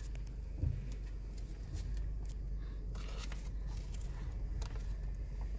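Low steady rumble of a car's interior, with scattered light rustling and clicks.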